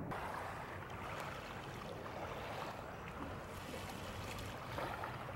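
Small waves lapping on a gravel shoreline, with a steady hiss of light wind.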